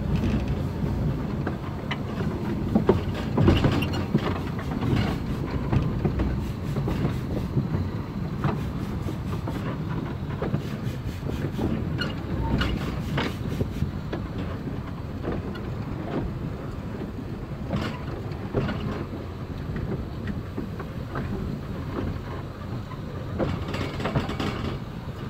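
Running noise on the footplate of a Kerr Stuart Wren class narrow-gauge steam locomotive under way: a steady rumble and rattle with scattered sharp clicks of the wheels over rail joints.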